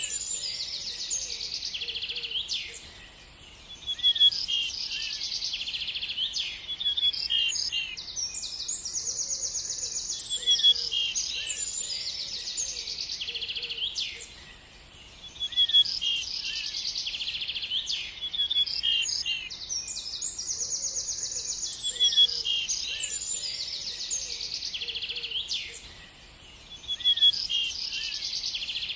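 Small birds chirping and twittering in a dense, continuous chorus of high, quick notes and trills. The chorus thins briefly about every twelve seconds, and the same passage repeats like a loop.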